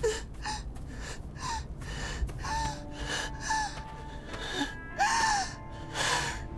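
A woman panting and gasping for breath as she runs: short, breathy voiced gasps about every half second, the strongest two near the end. Faint music underneath.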